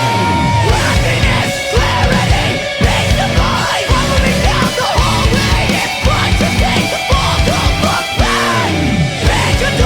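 Heavy post-hardcore rock music with driving drums, distorted guitars and synth, and yelled vocals.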